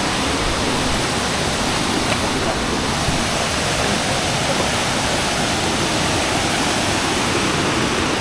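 Waterfall rushing steadily: a loud, even roar of falling water with no letup.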